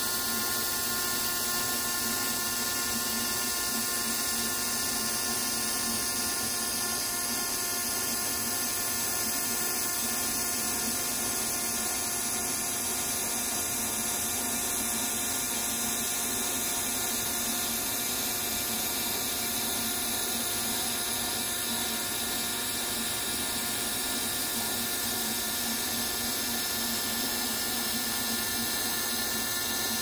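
Laser engraver at work engraving an agate slice: a steady hiss with a high drill-like whine and several held tones from the machine's fans, air assist and moving head.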